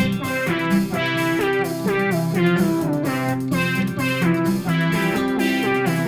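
Background music led by a plucked guitar.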